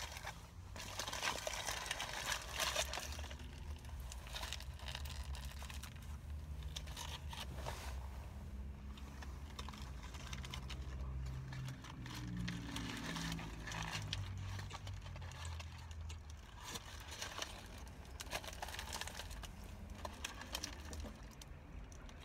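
Crinkling of a foil-lined paper sandwich wrapper being handled and peeled back from a roast beef sandwich, with chewing, over a low steady hum. The crinkling is densest in the first few seconds and returns in patches later.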